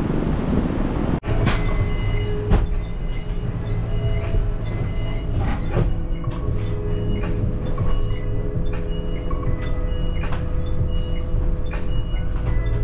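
About a second of wind noise cuts off abruptly. Then comes the inside of a shuttle bus: the engine's steady low hum with scattered rattles and clicks, and short higher tones over it.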